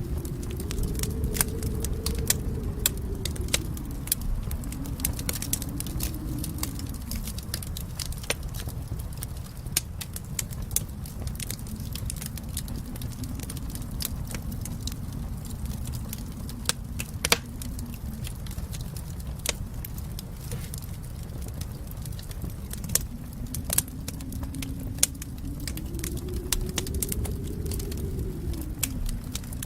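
Fireplace fire crackling, with irregular sharp pops over a low steady rumble of flame that swells and ebbs slowly.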